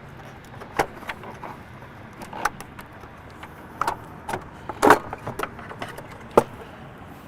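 Stock air intake hose being worked loose and pulled off by hand, its clamps already loosened: scattered clicks and plastic knocks, the loudest about five seconds in and another sharp knock a little after six seconds.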